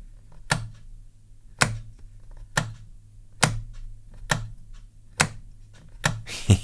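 Gravastar Mercury V75 Pro keyboard's flip-out feet snapping open and shut with a satisfying click, about once a second, six times, then a quicker run of clicks near the end.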